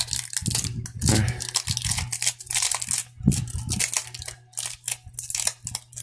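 Kapton tape crumpled and worked in the hands: irregular crinkling and crackling, over a low steady hum.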